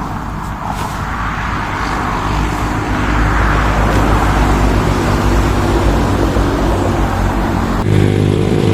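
A motor vehicle's engine running close by, growing steadily louder, with a sudden change in its sound about eight seconds in.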